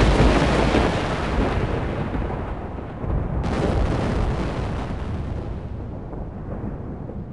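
Thunder rumbling loudly, with a second peal about three and a half seconds in, then slowly fading.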